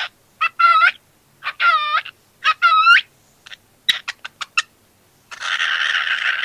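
Cockatiel calling: several loud whistled chirps that dip and rise again in pitch, a quick run of about six short chirps around four seconds in, then a long harsh, raspy call near the end.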